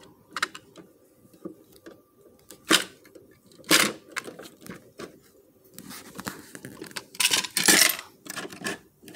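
Toy garbage truck's plastic bin-lifting arm and small plastic wheelie bins being handled: a series of sharp plastic clicks, knocks and clatter. The loudest knocks come about three and four seconds in, with a cluster near the end.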